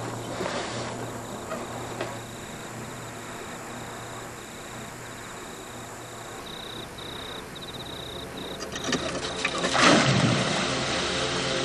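A fire flaring up and throwing sparks: crackling, then a rushing whoosh that swells to a peak about ten seconds in and dies away. Under it runs a steady low hum.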